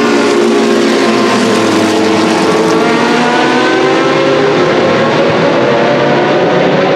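A pack of Group C sports-prototype race cars running together at low revs, many engine notes overlapping into one loud, steady sound that rises gently in pitch in the second half.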